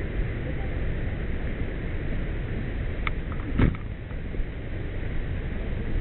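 Steady low rumbling noise from a camera carried by hand through dense brush, with one sharp knock a little past the middle.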